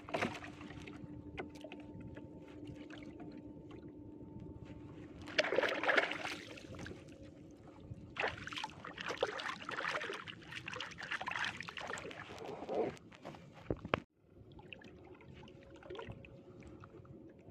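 Water splashing and sloshing in irregular bursts as a fishing net is worked in shallow flood water, over a faint steady hum. The sound drops out abruptly about fourteen seconds in, then the quieter background resumes.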